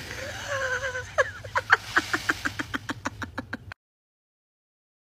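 Indian peafowl (peacock) calling: one held nasal call of about a second, then a rapid run of short honking calls, about six a second, that stops abruptly.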